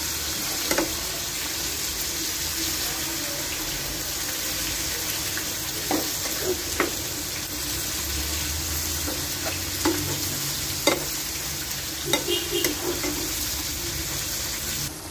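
Coconut-milk stew simmering in a pan with a steady sizzling hiss, stirred with a metal spoon that clinks against the pan several times.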